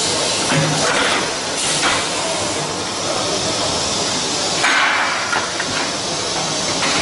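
Bestlink CUBE20C gravity-feed stone splitting machine at work: a steady hiss of spray at the splitting head, broken by a few sharp knocks as granite pieces are split off and drop, three of them in the first five seconds.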